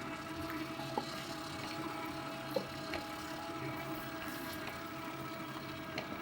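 Electric mixer running steadily on low speed, beating cream cheese batter as the last egg is worked in, with a few faint clicks.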